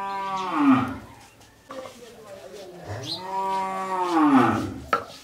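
A cow mooing twice: one call ends about a second in, and a longer one starts about three seconds in. Each drops in pitch as it fades.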